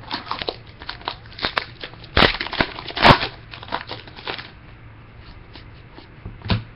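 Football trading cards and their foil pack wrapper being handled: a run of crackling, crinkling flicks and rustles, loudest around two to three seconds in, then quiet apart from one more flick near the end.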